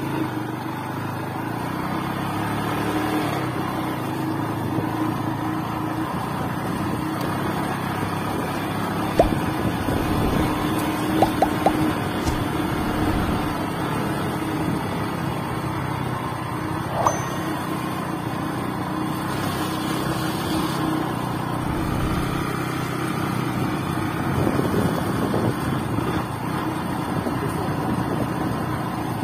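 Motorcycle engine running steadily while riding, with a few sharp knocks about nine to twelve seconds in.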